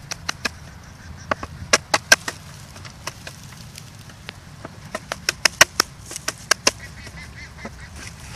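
Sharp cracks and knocks from a bamboo tube being worked by hand, coming in a few quick runs of clicks.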